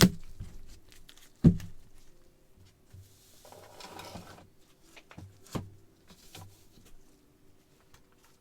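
Cards and plastic card holders being handled on a table: a few sharp taps and knocks, the loudest right at the start and another about a second and a half in, with a short rustle a little before the middle and a few lighter taps later.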